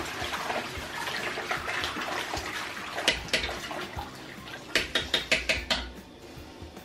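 Toilet flushing: rushing water for about three seconds, then gurgling and sputtering as the bowl drains, fading near the end.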